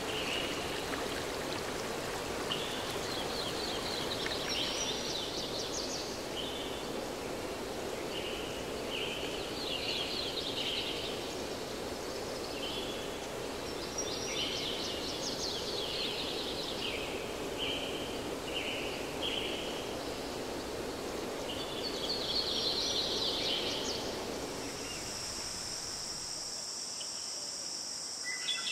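Steady rushing water of a forest stream, with short high chirping trills recurring every few seconds above it. Near the end the water fades away and a steady high insect chirring takes over.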